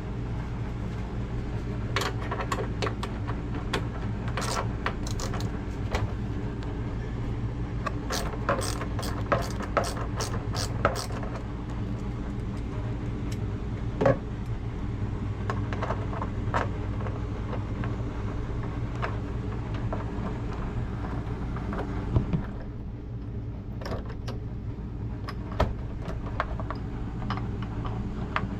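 Sharp metal clicks and small rattles of tools and hinge hardware being worked on a refrigerator door, quickest in a run about eight to eleven seconds in, over a steady low hum.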